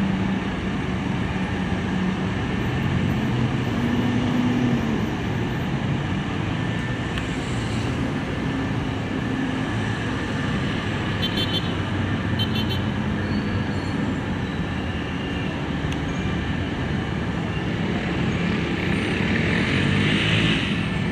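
Dense road traffic: the steady rumble and hum of many stopped and crawling cars, vans and lorries. Brief high-pitched rapid pulses come about halfway through, and the noise swells near the end.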